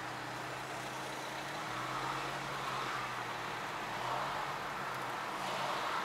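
Car cabin noise while driving: a steady low engine hum under an even hiss of tyres and road.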